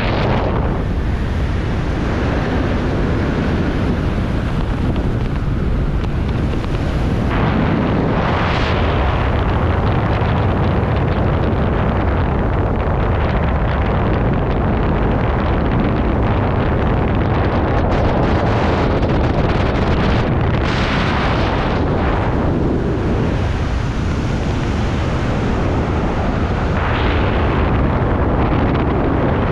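Wind buffeting a camera microphone during a tandem parachute descent under an open canopy: a steady loud rumble, with the hiss swelling and easing several times.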